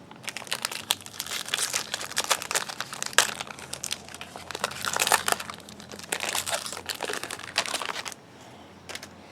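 Plastic wrapper of a 2015 Topps Series 1 jumbo pack of baseball cards being torn open and crinkled by hand: a dense run of sharp crackling that stops about eight seconds in.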